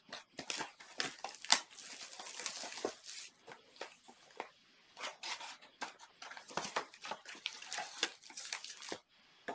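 A Panini Select baseball card box being opened and its wrapped card packs pulled out: a run of crinkling, tearing and rustling of packaging, with a couple of brief pauses midway.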